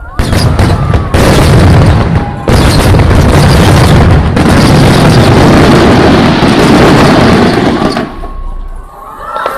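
Fireworks shells bursting in rapid succession, a dense run of loud booms that overloads the microphone, easing off shortly before the end.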